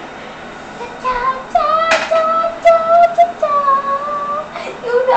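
A child singing long held notes in a high voice, a few sustained notes one after another, with a sharp click about two seconds in.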